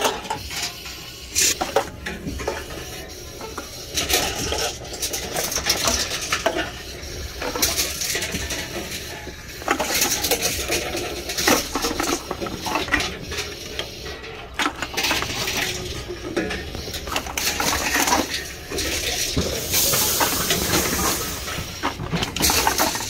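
Empty aluminium cans and plastic bottles clinking and clattering against one another in irregular knocks as they are handled out of bags for deposit return.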